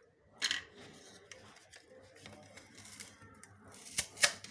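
Handheld plastic vegetable slicer cutting through onion: a crisp cut about half a second in, then two sharp snaps close together near the end, with faint clicks between.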